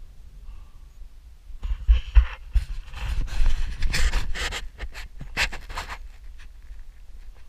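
Someone breathing hard close to the microphone: several heavy breaths over about four seconds, starting nearly two seconds in, over a steady low rumble.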